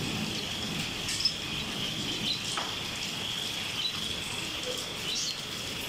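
Heavy rain and hail falling, with a few sharp taps of hailstones striking. A steady high insect trill runs over it.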